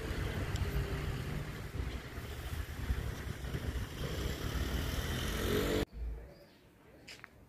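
Rumble of motor traffic with a vehicle engine rising in pitch just before the sound cuts off abruptly, about six seconds in. Quiet outdoor ambience with a few short bird chirps follows.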